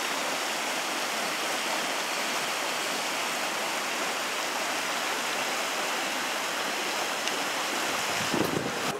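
Steady rushing of flowing water, an even hiss with no rhythm, with a brief faint low sound near the end.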